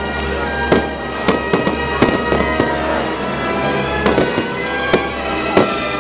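Fireworks going off in a string of sharp bangs and crackles at irregular intervals, over steady background music.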